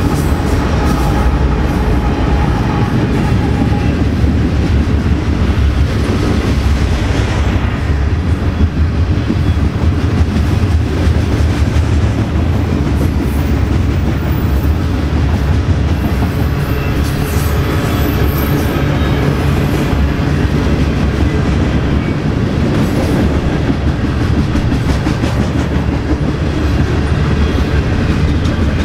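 BNSF freight train's cars rolling past at close range: a loud, steady rumble of wheels on the rails with rapid clickety-clack, and a faint high wheel squeal about halfway through.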